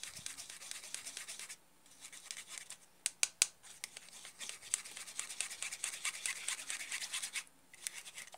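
Rapid scraping of egg yolks being rubbed through a small mesh sieve, a quick brushing rhythm that stops briefly twice. Three sharp clicks come about three seconds in.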